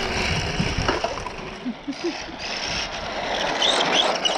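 Losi V100 electric RC lowrider pickup on off-road tyres driving over rough asphalt: a rushing tyre noise that grows louder as it comes close, with a few short whines from the motor rising and falling near the end.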